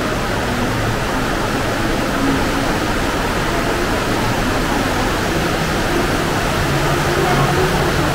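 Water rushing steadily through a cave from an underground stream and waterfall, a constant even roar of noise.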